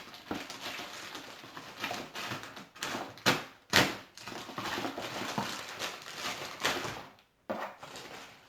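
Cardboard shipping box being cut open with a Husky utility knife: scratchy slicing and scraping along the packing tape and cardboard, broken by a few sharp knocks about three and a half seconds in and again near the end.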